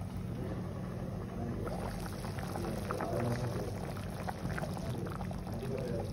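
Lentil kuzhambu bubbling in the pan, with many small pops and crackles over a steady low hum.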